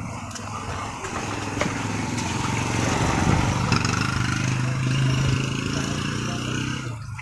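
A motor vehicle engine running with a steady low hum, getting louder over the first few seconds and dropping away near the end.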